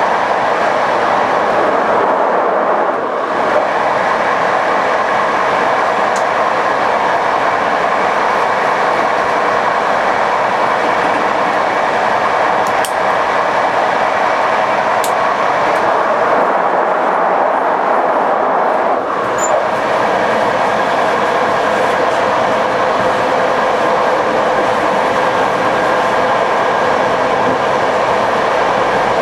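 Passenger train running along the line: a steady running noise of the moving train with a few held tones over it, briefly easing about 3 and 19 seconds in.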